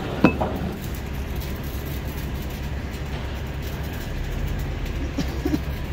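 Steady low rumble of running machinery, with one sharp clink of metal just after the start and a couple of faint knocks near the end.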